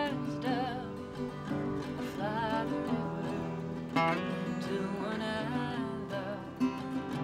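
Acoustic guitar playing with a woman singing, her voice wavering in vibrato on held notes.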